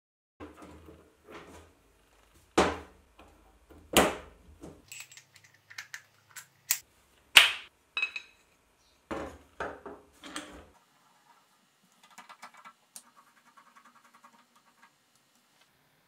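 Steel parts being handled on a metal workbench: a series of sharp metal clanks and knocks, loudest a little over seven seconds in, a few ringing briefly. Quieter scraping and rattling of metal near the end.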